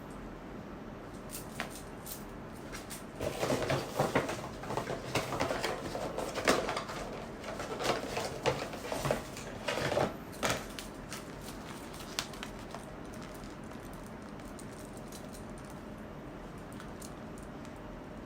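Hands handling unboxing packaging and a toy: a run of rustling, crinkling and light clicks and taps that starts about three seconds in and dies away near eleven seconds, with a few stray clicks after, over a steady low hiss.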